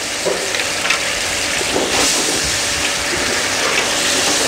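Sliced pig kidneys in a white wine and anchovy sauce bubbling and sizzling in a pan, with small pops, as the wine cooks off and the sauce reduces.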